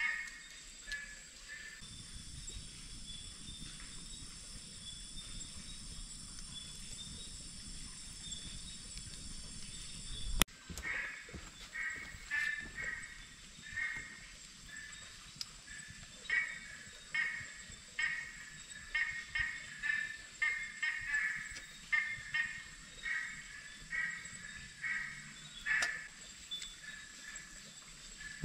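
Night forest ambience: frogs calling in short croaks that repeat at an uneven pace, over a steady high insect trill. A single sharp click comes about a third of the way in.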